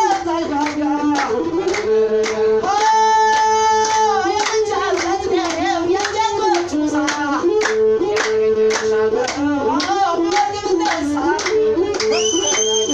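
Ethiopian azmari song: a masinko (one-string bowed fiddle) plays a stepping melody alongside a singing voice over a steady beat. Near the end a high held note comes in.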